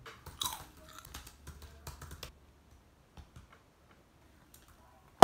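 Crunching chips and a crinkling foil snack bag up close, a quick run of sharp crackles that dies away about two seconds in.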